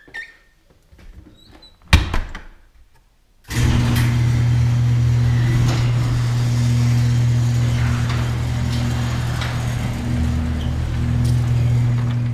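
A door shuts with a sharp thunk about two seconds in. Then an electric garage door opener starts with a sudden, loud, steady hum and keeps running as the door rolls up.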